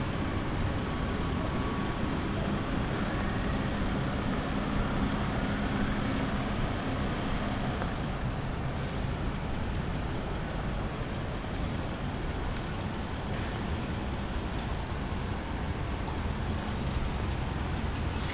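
City street traffic noise: a steady rumble of passing road vehicles, with a low engine hum for a few seconds near the start.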